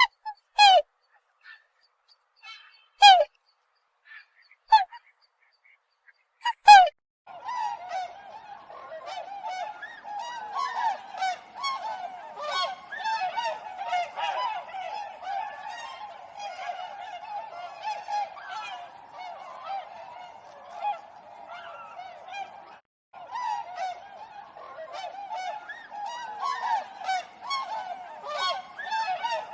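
Swans calling: four separate loud calls in the first seven seconds, then a dense chorus of many swans calling at once, overlapping continuously, with a brief break about three-quarters of the way through.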